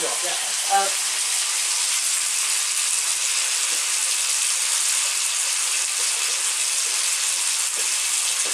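Chopped food sizzling steadily in hot oil in a large iron wok.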